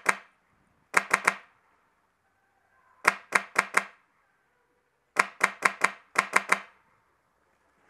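Airsoft rifle firing short strings of three to five quick shots, each a sharp crack, with pauses of a second or two between strings.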